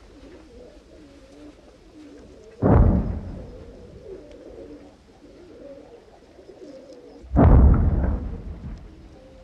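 Two explosions about five seconds apart, each a sudden heavy boom fading over about a second, with doves cooing faintly in between.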